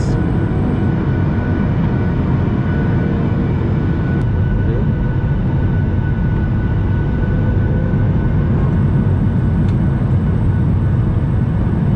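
Steady drone of an airliner's engines and rushing air heard inside the passenger cabin on descent toward landing: a loud low rumble with a thin, steady whine above it.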